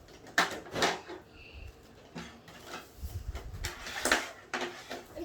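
Kitchen clatter: a handful of separate knocks and clunks of dishes and utensils being handled, spaced irregularly, with a brief low rumble about three seconds in.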